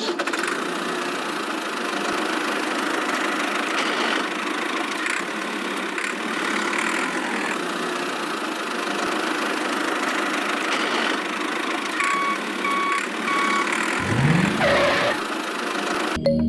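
Steady engine-like running of a miniature toy construction machine, with three short beeps about twelve seconds in.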